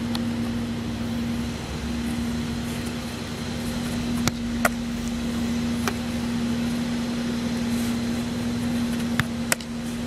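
A steady mechanical hum at a single pitch, with a few short sharp knocks, a pair about four seconds in and another pair near the end.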